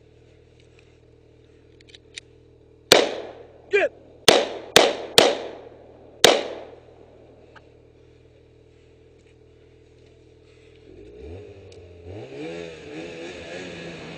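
Six shots from a Glock pistol in quick, uneven succession, starting about three seconds in, each trailing off briefly. Near the end a motor-like hum starts low and rises in pitch.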